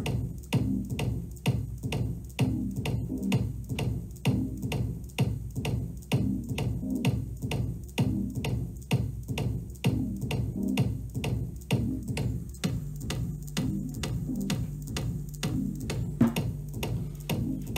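Electronic dance music with a steady drum-machine beat playing through a W-King portable Bluetooth speaker. A steady bass note comes in about two-thirds of the way through.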